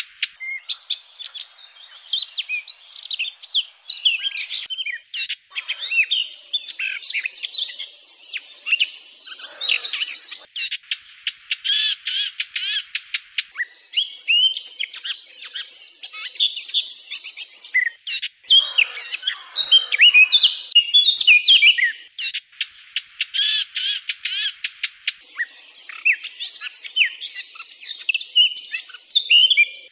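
Eurasian blackcap singing: a near-continuous stream of fast, varied warbling phrases mixed with runs of rapid repeated notes, broken by a few short pauses.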